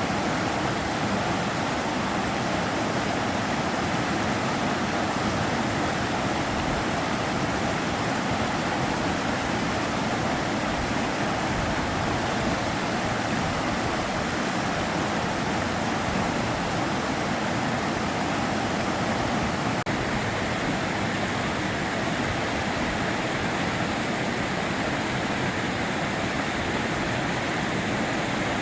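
River water rushing and splashing over rocks in a steady, even roar.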